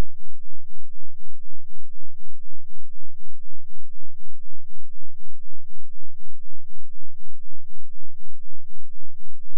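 A 2 Hz sine-wave bass test tone, a steady pulsing of very deep bass about four times a second with nothing above it.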